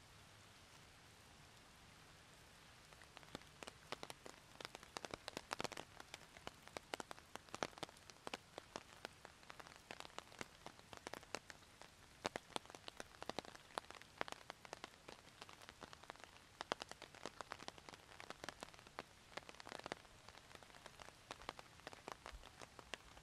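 Rain, with a faint steady hiss. From about three seconds in, many close, sharp, irregular drops hit a surface near the microphone.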